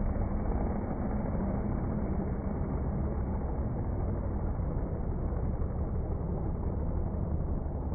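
Steady low rumble of drag strip engine noise, smeared and pitched low by slow-motion playback, with no sound above the low-mids.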